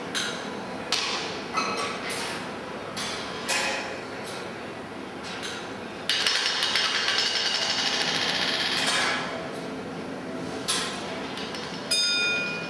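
George Rhoads ball-machine sculpture clattering as balls run through it: sharp clacks of balls hitting its parts every second or so, a continuous rattle for about three seconds starting some six seconds in, and a ringing chime struck near the end.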